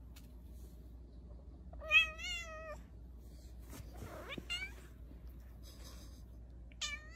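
Tabby cat meowing three times: a loud, wavering meow about two seconds in, a shorter one a couple of seconds later, and a third near the end that falls in pitch.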